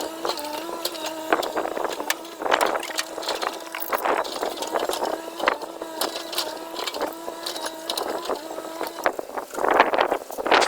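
A steady mechanical hum with a slight waver, with scattered clinks and knocks on metal and two short rushing noises, one about two and a half seconds in and one near the end.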